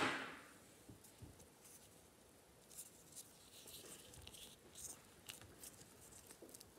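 Faint rustling and small ticks of fingers winding embroidery thread around a wrapped wire petal stem. A short, louder rustle right at the start fades within about half a second.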